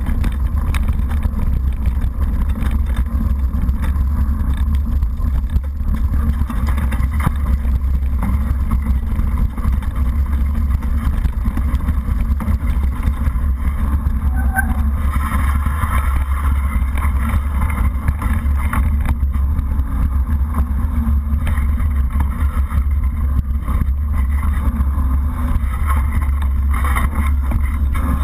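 Mountain bike ridden fast along a muddy, stony track, heard through a GoPro HD 960's microphone: a steady low rumble of wind buffeting and tyre and frame rattle, with no let-up.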